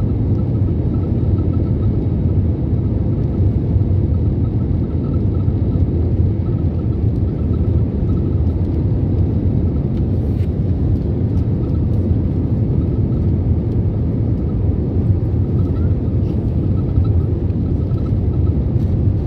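Steady low rumble inside the cabin of an Airbus A321neo rolling on the ground after landing, engine and wheel noise carried through the fuselage, with a faint wavering whine above it.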